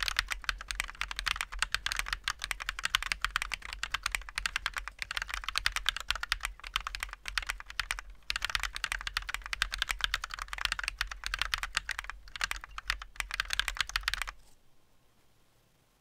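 Fast typing on a handwired mechanical keyboard with Halu Halo linear switches and flat 3D-printed keycaps: a dense, quick run of key clacks with a few brief pauses. It stops about a second and a half before the end.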